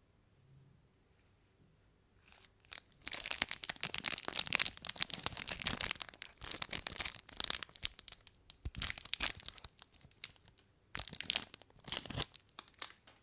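Candy wrapper being torn open and crinkled close up, in dense crackling spells: a long one starting about three seconds in, then two shorter bursts near the end.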